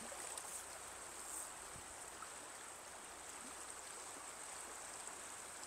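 Stream water running steadily over a trout run, with a steady high-pitched insect trill over it.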